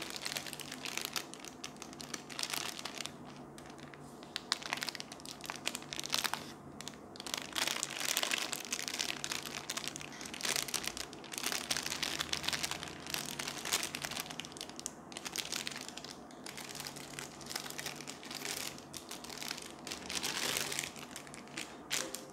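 Clear plastic packaging sleeve crinkling and crackling continuously as hands handle it and work a paracord survival bracelet out of it.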